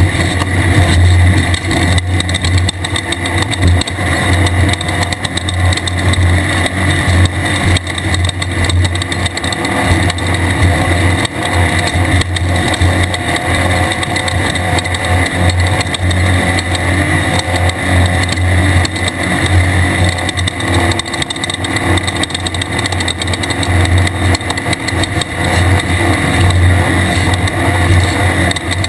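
Pro 1600 desert race car's air-cooled VW flat-four engine running hard and steadily at race speed, with many small knocks over the top.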